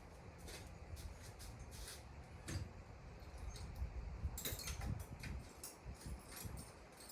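Faint, irregular small clicks and rattles of hand tools being handled, a ratchet and socket extension being fetched and fitted, with a busier run of clicks about four and a half seconds in.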